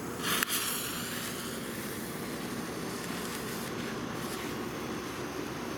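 A firework fuse catching from a lighter: a brief loud fizz with a sharp click about half a second in. Then steady hissing noise while the fuse burns down.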